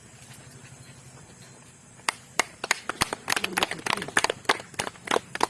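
Faint low hum, then from about two seconds in a quick, irregular run of sharp cracks.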